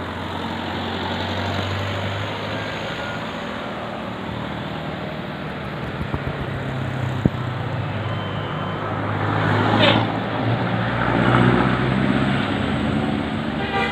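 Road traffic: heavy vehicle engines running with tyre and road noise, as vehicles pass close. The sound swells about ten seconds in and again about twelve seconds in.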